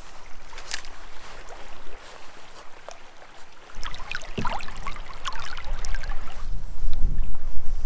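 Canoe paddle strokes splashing in a moving creek, with water trickling and running around the boat. A low rumble joins about halfway through.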